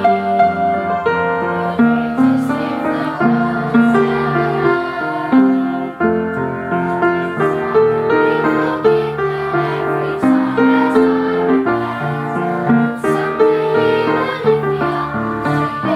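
Piano music playing continuously, a steady run of chords and melody notes.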